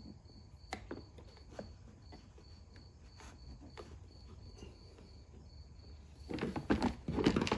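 Rubber fuel hose being pushed and twisted onto a brass barbed fitting on a generator's side panel: small clicks and rubbing, getting louder and busier from about six seconds in. A faint high chirp repeats about three times a second behind it.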